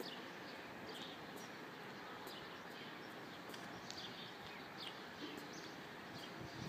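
Small birds chirping now and then, short high chirps over a quiet, steady outdoor background hiss.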